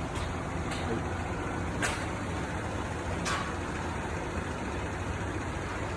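Mori Seiki MS-850 engine lathe running under power on a test run, its spindle turning with a steady low machine hum. A couple of sharp clicks sound about two and three seconds in.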